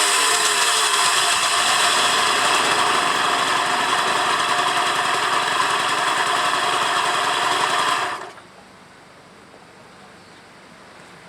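Suzuki PV50 Epo scooter's small two-stroke engine running steadily, then cutting off suddenly about eight seconds in. The engine is listed as making an abnormal noise.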